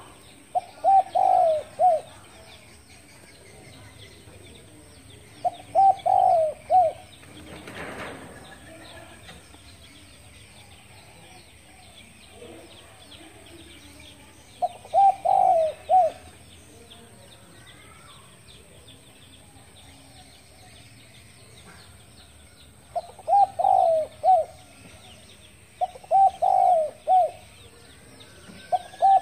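Spotted dove cooing: a phrase of three or four coos, given about six times at irregular gaps, the last ones close together. Small birds chirp faintly in the background.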